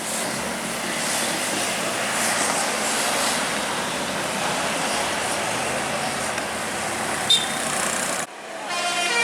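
A large bus passing close by, a steady rush of engine and road noise that cuts off suddenly near the end. In the last second a bus's multi-tone telolet horn starts to sound.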